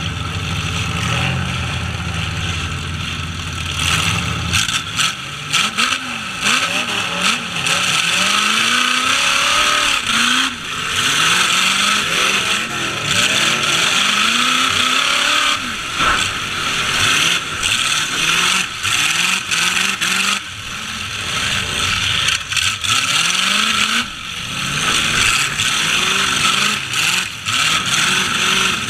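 Demolition-derby truck engines rumbling low, then from about four seconds in revving up and down again and again as the trucks drive, with scattered bangs of impacts.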